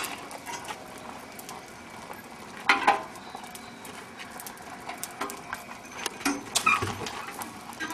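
Open coal fire crackling, with metallic clanks as a heated steel boiler ring hanging from a crane is levered round on its stand. The loudest clank comes about three seconds in, and a few lighter knocks follow near the end.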